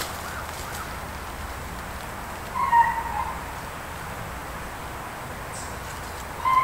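Two short, clear animal calls, one about two and a half seconds in and another near the end, over a faint steady background hiss.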